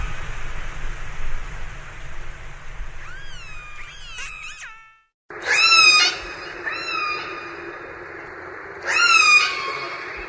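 Orca calls, recorded underwater: a series of short pitched calls that sweep up and fall back, over a steady hiss. The audio cuts out briefly about halfway, then two loud calls come, one just after the gap and one near the end.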